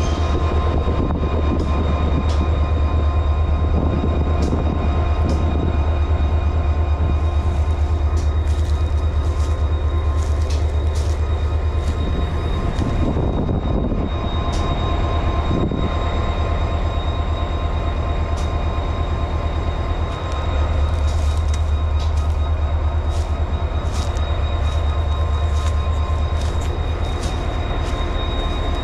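Diesel locomotive moving slowly past, its engine running with a steady low hum, with thin high-pitched wheel squeal and scattered sharp clicks from the wheels on the track.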